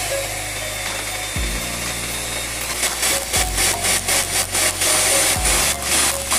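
Electric hand mixer running, its beaters whipping cream with a steady whir. Background music plays along with it: a bass note that changes every two seconds, and a beat that comes in about halfway.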